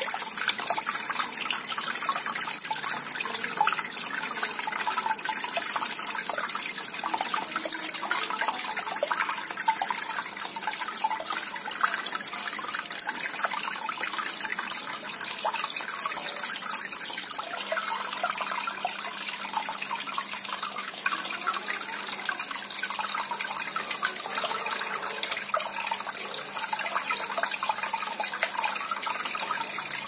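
Water in a small cement tabletop waterfall fountain, pumped by an aquarium pump, splashing and trickling steadily as it pours from the spout into a bowl and spills over into the lower basins.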